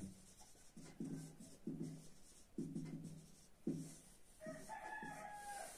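Marker pen writing on a whiteboard: a series of short squeaky strokes about a second apart, with a thin higher squeak in the last second and a half.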